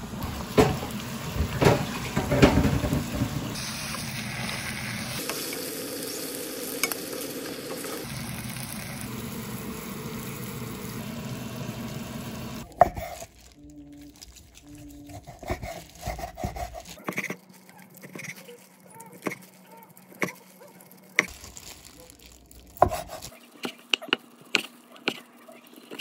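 A pot simmering under a glass lid, a steady bubbling hiss with louder pops in the first few seconds. After about thirteen seconds it cuts to a knife slicing braised pork on a wooden cutting board, the blade knocking on the board about once a second.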